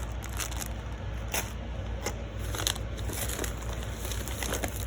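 Packaging being handled: crinkling and rustling with scattered small clicks and crackles, over a steady low hum.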